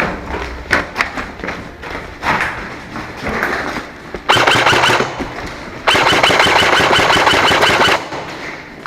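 Airsoft electric gun firing on full auto: a short rapid burst about four seconds in, then a longer burst of about two seconds. Scattered clicks and knocks come before the bursts.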